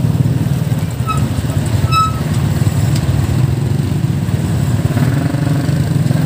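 Motorcycle and truck engines running in slow street traffic, a steady low rumble. Two short high-pitched chirps come about a second and two seconds in.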